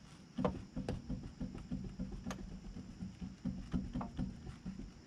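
Worn rear wheel bearing and hub on a Nissan Sentra knocking as the raised wheel is rocked back and forth by hand, a run of short knocks at about three a second. The play and noise mark this hub as the one with the bad bearing.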